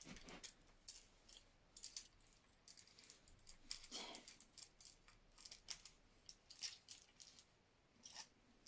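Faint metallic clinks, clicks and small rattles of steel handcuffs and their chain being handled, with a few brief ringing chinks of metal on metal.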